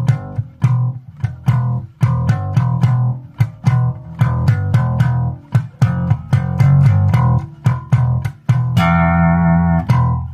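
Vester Precision Bass copy with a plywood body, played on old strings: a run of plucked notes at two or three a second. Near the end one note rings on for about a second.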